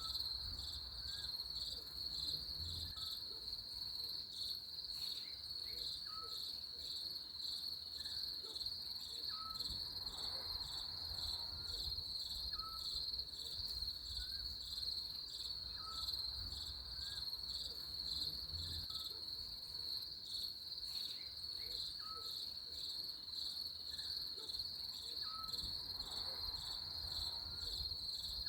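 Crickets chirping in a continuous, rapidly pulsing high trill, with short higher chirps about every second over a low rumble.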